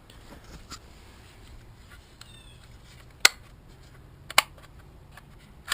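Sharp clicks and knocks from handling a plastic-bodied Homelite 240 chainsaw. Two loud single clicks come about three and four and a half seconds in, with a third right at the end.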